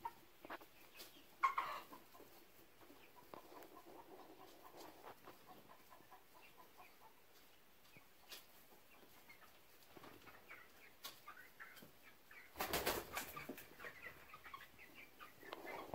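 Flock of chickens, California Grays among them, clucking softly in short scattered calls, with a brief louder flurry about three-quarters of the way through.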